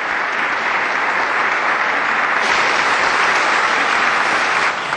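Audience applauding: dense, steady clapping that grows a little fuller about halfway through and dies away right at the end.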